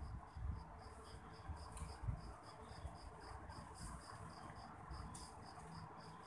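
An insect chirping steadily at a high pitch, about four chirps a second, over a faint low rumble.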